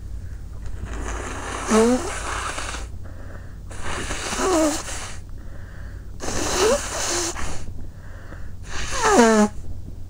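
A sick person letting out four forceful, noisy blasts of breath through the nose, each about a second or more long with a brief voiced note, separated by shorter, softer breaths.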